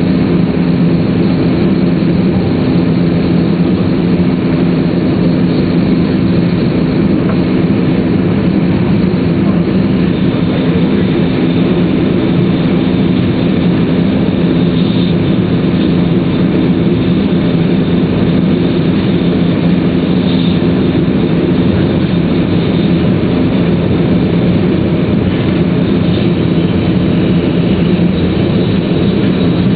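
Steady inside running noise of an E2-series Tōhoku Shinkansen "Hayate" train at speed: a constant rumble of wheels on rail with a steady low hum. A thin high whine joins it about a third of the way through.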